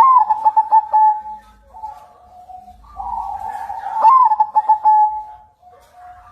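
Zebra dove (perkutut) of the white 'kapas putih' variety singing: two phrases of rapid, trilled cooing notes, the second starting about three seconds in, each ending with a short lower coo.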